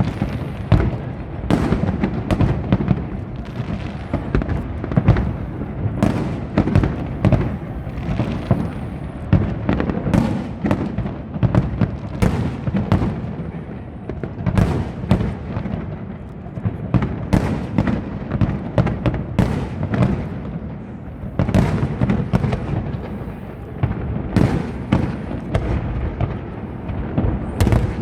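Fireworks display going off in a dense, continuous barrage. Many sharp cracks and bangs come in quick irregular succession over a steady low rumble of booms.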